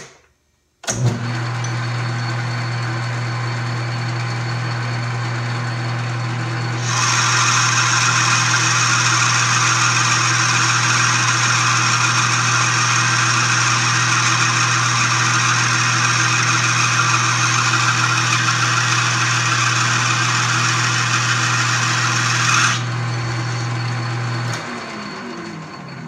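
South Bend 13-inch metal lathe starting about a second in and running with a steady motor hum. From about seven seconds the tool takes a turning pass on bronze stock with a loud steady hiss, which stops after about fifteen seconds. Near the end the lathe is switched off and the spindle winds down with a falling hum.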